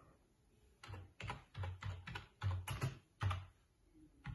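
Typing on a computer keyboard: a quick run of about eight keystrokes starting about a second in, then one more key near the end.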